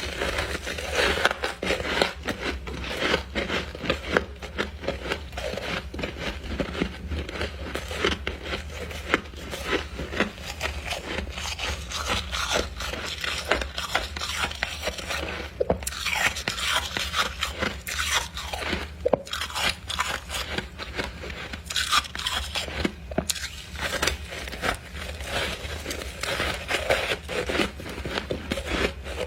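Freezer frost being bitten and chewed up close: continuous squeaky, crackly crunching, with a few louder bites now and then, over a steady low hum.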